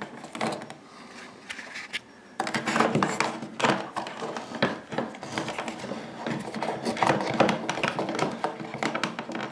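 Irregular clicks, knocks and rustling from handling plastic electrical fittings and cable: a cable being fed through a wall box and a plastic switch plate pushed into place. Sparse for the first couple of seconds, then busier.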